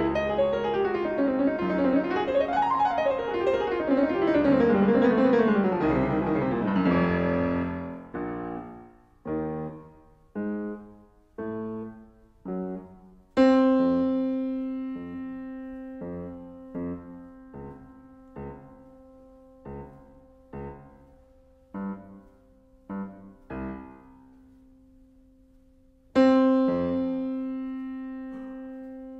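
Yamaha CFX concert grand piano playing, recorded through a WM-61A electret microphone capsule. It opens with fast, dense runs sweeping up and down. From about eight seconds in it changes to short, detached chords with gaps between them. About halfway through, and again near the end, a loud sustained note is struck and rings on under the chords.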